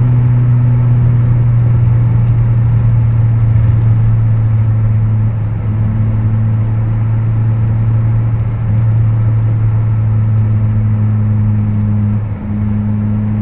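A 1996 Toyota Camry's 2.2-litre four-cylinder engine heard from inside the cabin through a straight-through exhaust: both catalytic converters hollowed, muffler deleted, resonator kept. It is cruising at highway speed at about 3000 rpm, a steady low drone that is a little loud, dipping briefly near the end.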